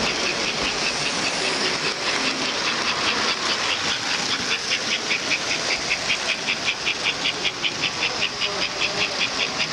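Model steam locomotive sound unit chuffing in an even rhythm, about four to five beats a second, growing clearer about four seconds in, over the general hubbub of a crowded hall.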